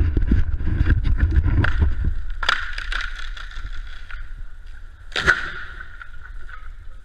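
A large poplar tree falling after felling: wood cracking and a heavy crash with low rumble in the first two seconds, then two sharp cracks about two and a half and five seconds in.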